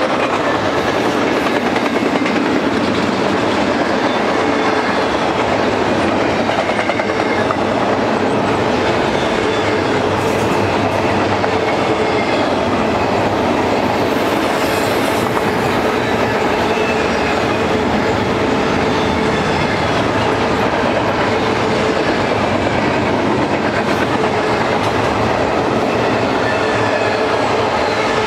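A BNSF intermodal freight train's cars rolling steadily past: double-stack container cars, then truck trailers on flatcars. The wheels clickety-clack over the rail joints in a dense, even rumble.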